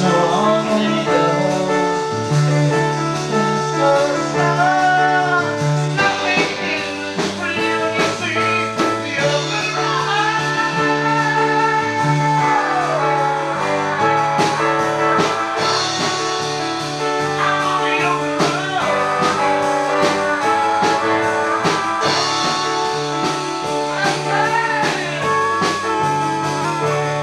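Band music: a singing voice over a bass line, guitar and drums, with the bass notes changing every second or two.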